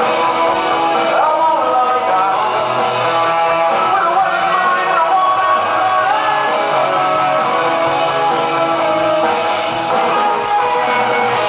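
Live rock band playing: electric guitars and drums with a lead singer, steady and loud throughout.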